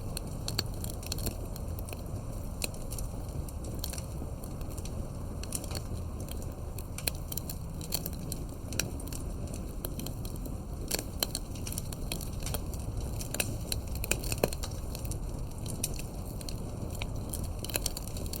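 Campfire crackling: a steady low rumble of burning with irregular sharp pops and snaps from the wood throughout.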